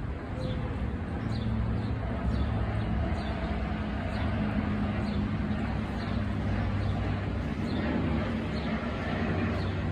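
Outdoor ambience: a steady low rumble of traffic, with a bird giving a short, high, falling chirp over and over, about three every two seconds.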